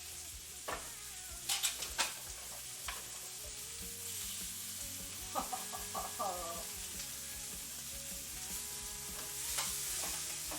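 Steak sizzling steadily in a frying pan, with a few light clicks in the first few seconds.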